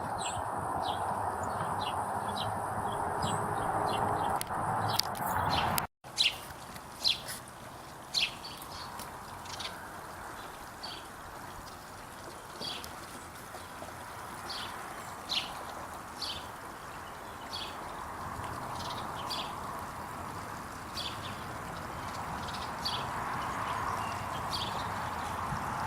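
Birds chirping: short, high chirps repeated about once or twice a second over a steady hiss. The sound drops out briefly about six seconds in, then the chirping carries on.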